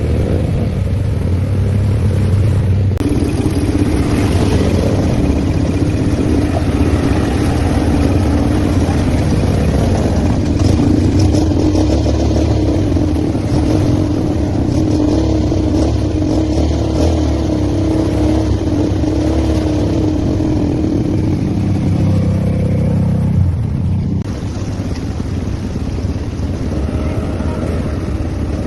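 ATV engine running steadily under a dense low rumble, as during a ride; it eases off a little near the end.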